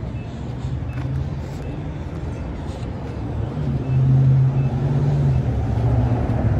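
A steady low mechanical hum, like an engine or machinery running, that gets louder about three and a half seconds in.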